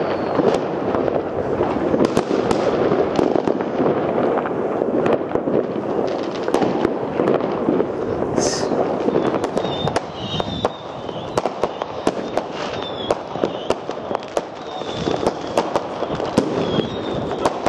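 A dense barrage of fireworks: continuous crackling with frequent sharp bangs. From about ten seconds in, short high chirps recur roughly once a second.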